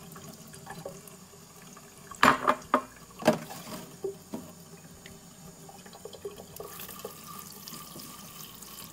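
A thin stream from a kitchen tap running into a stainless steel sink, with a few sharp knocks a little over two and three seconds in. Near the end the water turns louder and hissier as a gentle spray is run over sprouting mung beans on a hemp mat in a plastic colander to rinse them.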